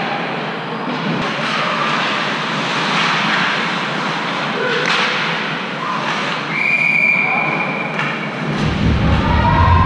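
Hockey rink game noise: shouting voices over a steady din, with several sharp knocks, likely pucks or sticks. A long, steady high whistle blast comes about two-thirds in. Near the end, music with a heavy bass beat starts up.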